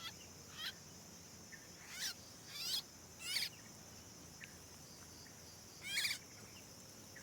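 Yellow-vented bulbul calling in short, downward-sweeping notes, about six times with a long pause in the middle; the bird is taken to be the parent calling for its fledgling. A steady high insect drone runs underneath.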